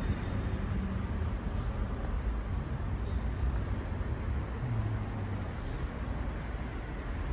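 Road traffic: a steady low rumble of passing cars, swelling briefly about five seconds in.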